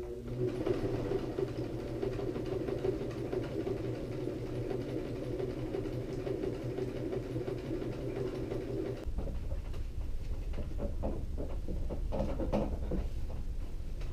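Household electric sewing machine running steadily as it stitches through fabric, then stopping about nine seconds in. Scattered knocks and rustles follow as the cloth is handled.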